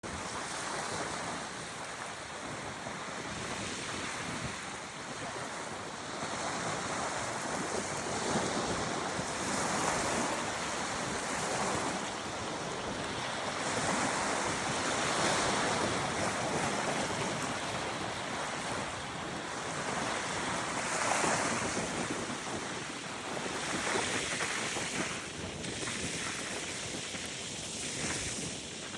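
Lake Huron waves breaking on a sandy beach: a continuous wash of surf that swells and eases every couple of seconds, with wind buffeting the microphone.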